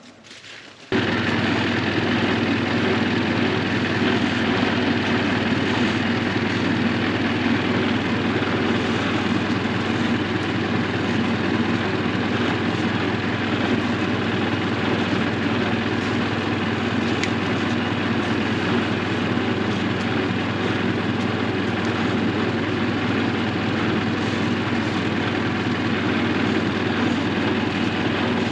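An engine running steadily, starting abruptly about a second in and holding an even, unchanging level with a low hum.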